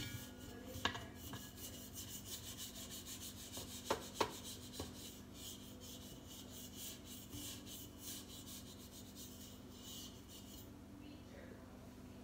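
Stand mixer running, its beater rubbing against the stainless steel bowl in a quick, even scrape of about four strokes a second that stops about eleven seconds in. A few sharp clicks near the start and around four seconds in.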